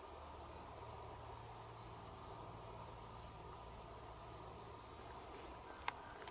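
Insects trilling outdoors, one continuous high-pitched drone, with a single brief click near the end.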